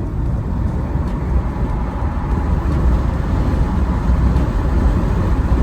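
BMW 330i's turbocharged four-cylinder engine pulling under acceleration, heard with the windows down over wind and road noise, getting gradually louder.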